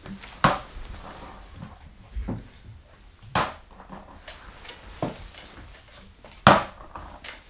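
A plastic water bottle flipped onto a skateboard deck on a tiled floor. It lands with sharp knocks, five of them spread apart, the loudest about six and a half seconds in.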